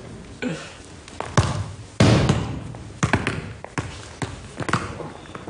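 A football kicked at a Torwand goal wall: a sharp kick, then the loudest thud about two seconds in as the ball hits the wall, followed by several lighter bounces on the hard studio floor.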